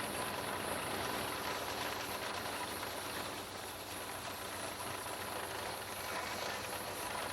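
Steam engine and sawmill machinery running steadily, an even mechanical noise.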